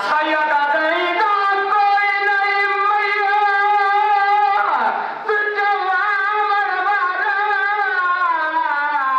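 A man singing a drawn-out mourning lament into a microphone, holding long notes with a wavering, ornamented melody. There is a quick sharp breath about halfway through.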